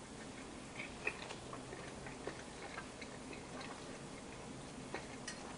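Faint, scattered light clicks and taps of cutlery against a plate as a piece of chicken is cut and tasted.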